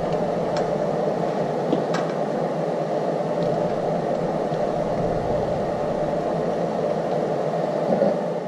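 Steady whirring background noise, with a few faint light clicks of bolts being threaded by hand into a camshaft phaser.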